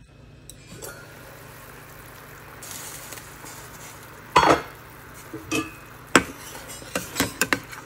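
Curry gravy simmering in a kadai with a steady sizzling hiss, while a utensil stirs it and clinks against the pan several times, sharpest about four and a half seconds in and just after six seconds, with a quick run of clinks near the end.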